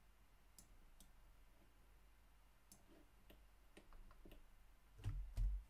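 Scattered faint clicks from a computer mouse, spaced irregularly, then a few low thumps about five seconds in.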